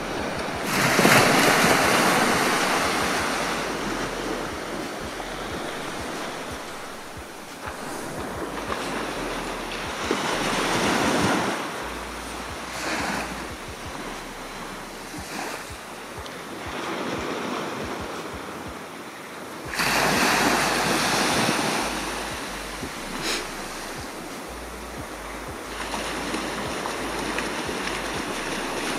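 Mediterranean surf breaking on a sandy beach: waves crash and wash up the shore about four times, about a second in, near ten seconds, near twenty and near twenty-six, each fading slowly before the next. Wind buffets the microphone.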